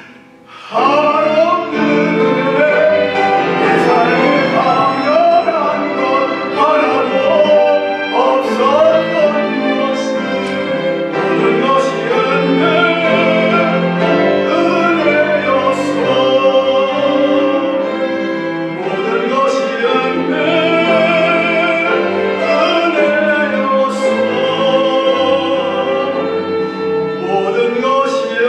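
A solo male voice singing a slow hymn with vibrato, accompanied by a small string ensemble of violins and cellos; the music swells in about a second in.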